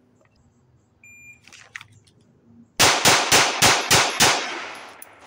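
A shot timer beeps once about a second in, then a 9 mm pistol with a red dot fires six quick shots about a third of a second apart, with echo ringing out after the last: a timed draw-and-fire drill.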